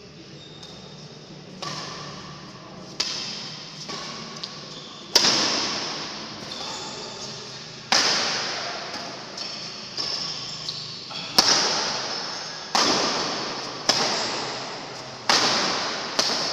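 Badminton rackets striking a shuttlecock in a doubles rally, about a dozen sharp hits one every second or so, each ringing on in the hall's echo.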